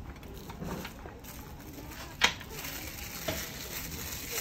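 Rustling and crinkling of packaging being handled, with a sharp click a little over two seconds in and a softer one about a second later.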